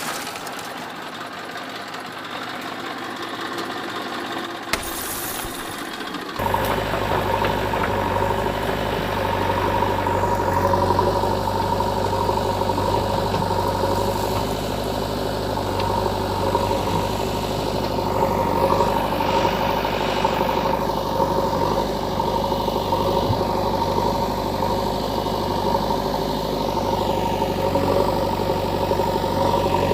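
A motor running steadily with an engine-like hum. About six seconds in it switches to a louder, deeper, steady running sound that continues throughout.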